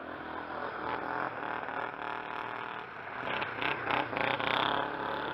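1997 Yamaha Warrior 350 quad's single-cylinder four-stroke engine running hard under throttle, its revs rising and falling. About three seconds in, the rear tyres spray dirt as the quad slides, adding a gritty scraping over the engine for a second or so.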